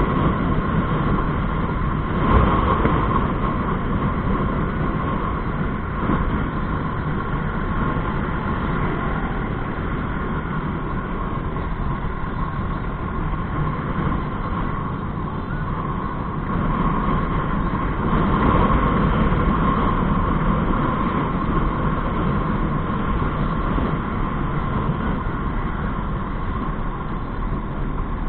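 Honda motorbike on the move, heard from a camera mounted on the bike: steady engine and road noise mixed with wind on the microphone, getting somewhat louder about two-thirds of the way through.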